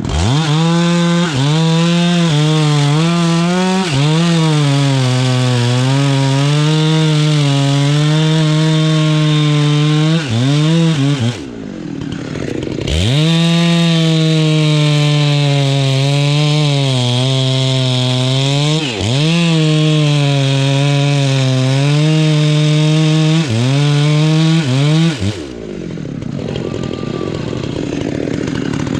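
Chainsaw cutting into a mahogany tree. The engine is held at high revs, its pitch sagging and recovering again and again as the chain bites into the wood. It drops to idle twice, once about halfway through and again for the last few seconds, before revving back up.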